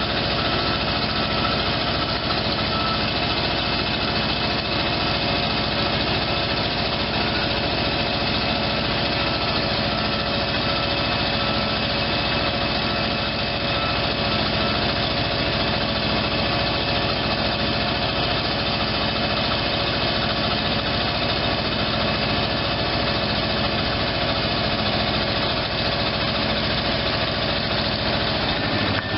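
The 1972 Ford 800 truck's V8 gas engine running steadily to drive the Pitman Hydra-lift crane's hydraulics while the boom and hoist line are worked. There is a steady whine over the engine hum.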